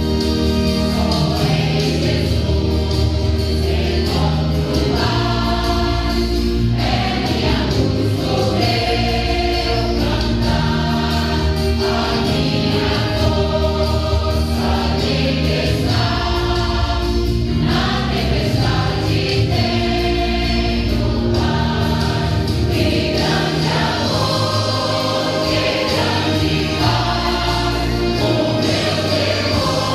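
Choir singing a gospel hymn with keyboard accompaniment and a steady bass line.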